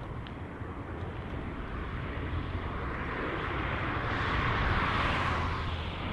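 Engine noise of a jet airliner just after takeoff, climbing away: a steady rushing roar over a low rumble that swells about four seconds in and then eases.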